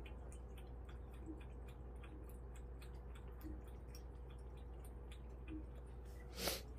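Two cats eating from ceramic bowls: faint, irregular clicks of chewing and licking, over a faint steady hum. One louder, brief noise near the end.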